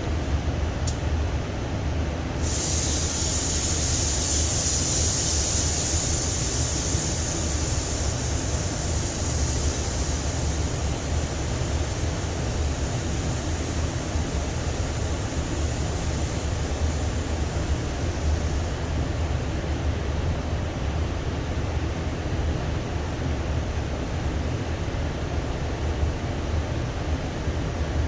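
Air spray gun hissing as it lays another coat of primer surfacer to build up a crimped texture, starting about two and a half seconds in and stopping about two-thirds of the way through. A steady low rumble runs underneath.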